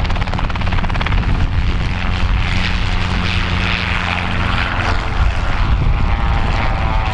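Light helicopter flying low past: its rotor chops rapidly over a steady engine note.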